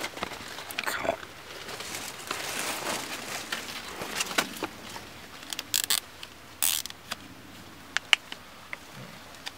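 Rustling and crackling of dry corn leaves and clothing as hands work at a deer's head and antlers, with several sharp clicks and ticks in the second half.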